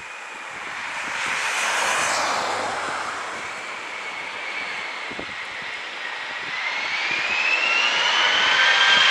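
Airbus airliner's jet engines on a low pass over the runway: a rushing roar that swells and fades, then an engine whine that rises in pitch and grows louder from about two-thirds of the way in. The rise is the engines spooling up to full thrust for a go-around as the landing is abandoned.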